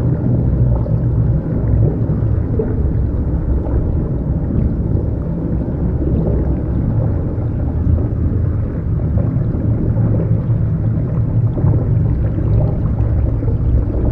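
Underwater ambience: a steady, muffled low rumble with faint bubbling and gurgling.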